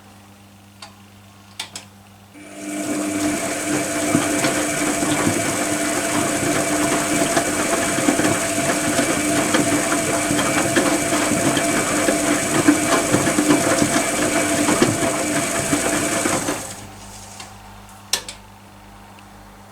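Privileg Compakt 92 washing machine's motor turning the drum during the wash: a steady whir that starts about two seconds in and stops about three seconds before the end, the on-and-pause rhythm of a washer tumbling its load. A few light clicks come in the pauses on either side.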